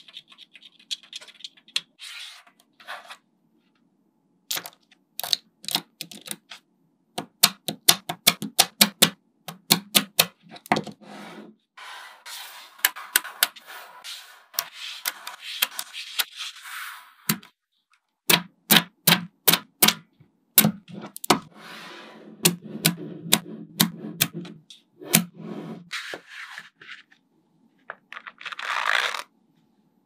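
Small neodymium magnet balls clicking as they snap onto one another, in quick runs of sharp clicks, with scraping and rustling as strips of balls are slid and rolled across a table.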